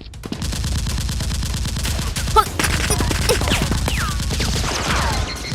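Rapid automatic gunfire sound effects, a dense run of shots with heavy low thump, with several falling whistles like ricochets whizzing past.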